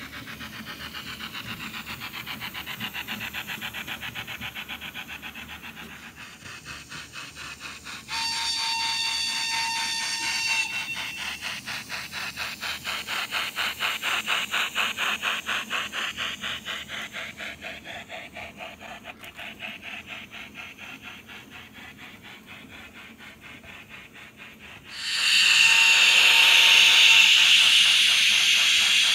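H0-scale model steam locomotive's sound: rapid, even exhaust chuffing that swells and then fades as the train passes, with a whistle held for about two seconds near the start. A sudden loud steam hiss cuts in near the end.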